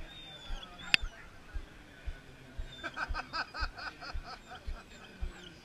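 Faint background voices, under soft low thumps about twice a second. There is a sharp click about a second in, and a quick rhythmic run of short high vocal sounds, like snickering, from about three to four seconds.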